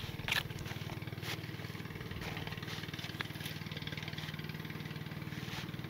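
A small engine running steadily at idle: a low, even hum with a fast regular pulse, with a few faint clicks over it.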